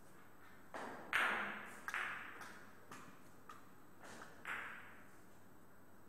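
Billiard balls clacking: a few sharp knocks, the loudest about a second in, a pair near two seconds and another about halfway through, each ringing briefly in the room.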